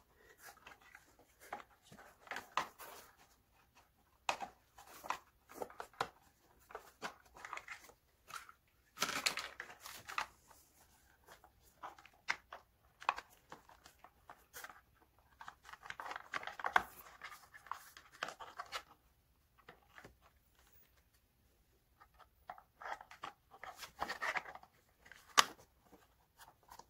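Hard plastic side cover of a gaming chair being pushed and worked into place against the seat's side bracket: irregular clicks, scrapes and rustles, with a quiet spell about two-thirds of the way through.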